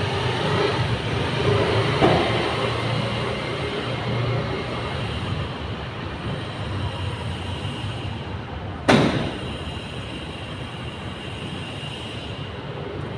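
A Hyundai van's rear tailgate slammed shut about nine seconds in: one sharp bang, the loudest sound, with a short echo in the concrete parking garage. A steady rumbling background noise runs under it.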